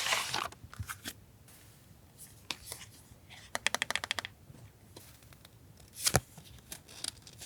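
Paper goods being handled: a brief rustle, then a quick riffle of a stack of cards or sheets about three and a half seconds in, with a sharp tap near the end.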